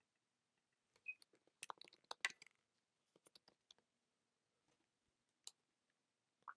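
Near silence with a few faint, sharp clicks, most of them bunched between one and two and a half seconds in and a couple more later.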